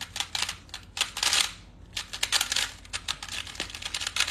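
Speedcube being turned very fast: dense clicking and clacking of its layers in quick bursts of turns with brief pauses between them.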